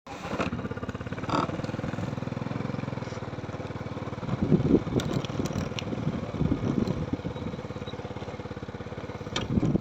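A small engine running steadily with a fast, even putter, swelling louder a few times after the middle.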